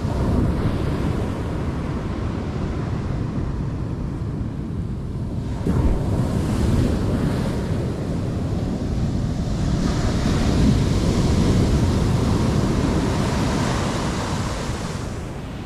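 Ocean surf washing onto a sandy beach, with wind buffeting the microphone. The wash swells louder a little past the middle and again through the later part, and there is a single brief knock about six seconds in.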